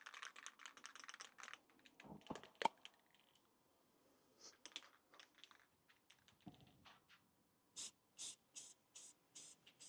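Near silence with faint handling noise: scattered light clicks and knocks, a few louder knocks about two seconds in, and a run of about six short, sharp bursts near the end.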